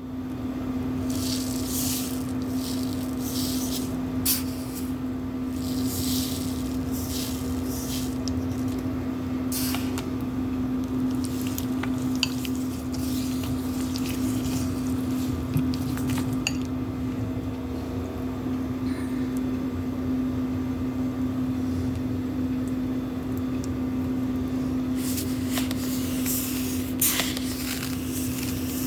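Kitchen preparation sounds: short rushing, hissy bursts from cereal, milk and chia seeds being poured and handled in a bowl, over a steady low electrical hum.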